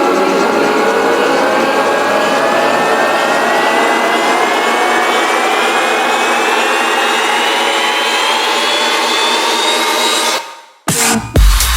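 Electronic dance music build-up: a noisy riser sweep climbing steadily in pitch for about ten seconds, then cutting off into a brief silence before the drop lands with heavy kick drum and bass right at the end.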